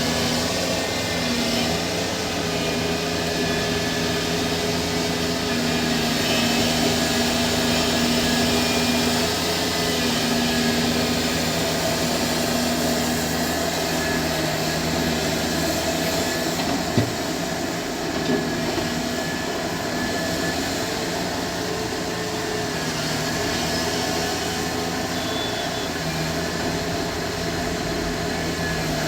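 Heavy diesel earthmoving machinery running steadily, an excavator and dump truck at work. A sharp knock about 17 seconds in, and a smaller one just after.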